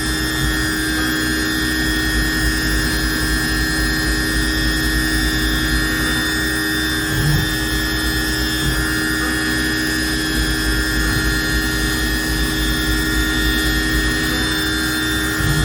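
Haas VF-0 CNC vertical machining center running: a steady machine hum with several constant whining tones over a low rumble, and a brief low thump about seven seconds in.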